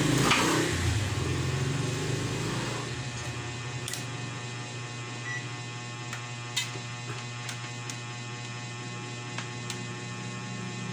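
Steady electrical mains hum, under a low rumble that fades away over the first three seconds. A few faint clicks, the clearest about six and a half seconds in.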